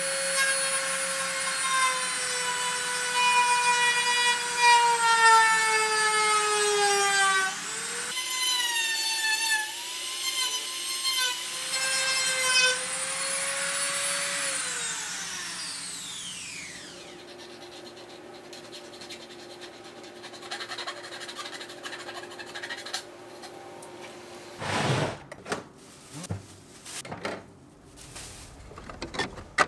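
Handheld rotary tool cutting through plastic pillar trim: a high motor whine whose pitch sags as the bit bites, shifts about midway, then winds down about fourteen seconds in as the tool is switched off. A few knocks follow near the end.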